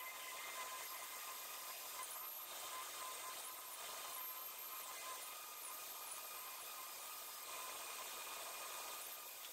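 Cordless drill boring into a plum-wood log, its motor whine stepping up and down several times as the trigger is worked, over a steady hiss.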